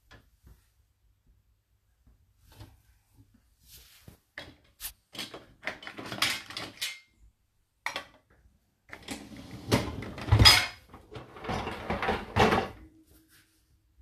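Dishes, cups and plastic containers being set into a dishwasher's wire rack: scattered clinks and knocks that start after a few quiet seconds and grow denser and louder over the last few seconds.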